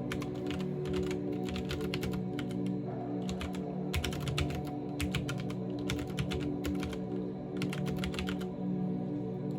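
Typing on a CM Storm XT mechanical keyboard with smooth linear switches: quick runs of key clacks broken by short pauses, stopping shortly before the end. Soft background music plays underneath.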